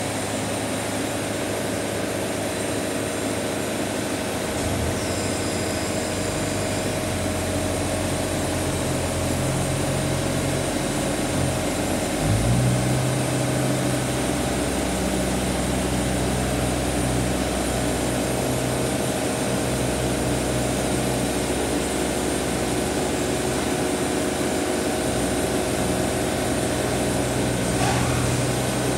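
Wood-Mizer portable band sawmill running steadily, its engine and band saw head going without a break. About twelve seconds in the engine note drops lower and gets stronger.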